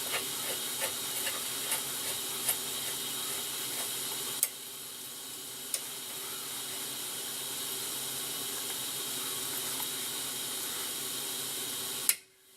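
Steady hiss of a gas torch heating the swing arm's bushing bore to expand the metal. A run of light clicks, about two a second, sounds in the first few seconds. The hiss cuts off abruptly near the end with a click.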